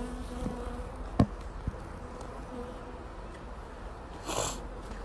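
Honeybees buzzing steadily around an open hive. There is a sharp knock a little over a second in, a fainter one just after, and a brief hissing noise near the end.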